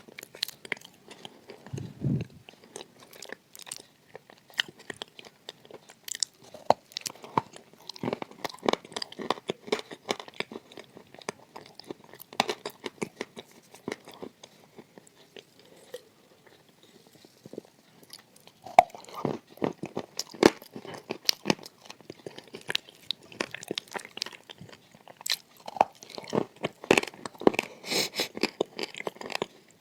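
A person biting and chewing crunchy edible clay close to the microphone: a dense run of crisp cracks and crunching chews. The crunching eases off for a few seconds around the middle, then picks up again.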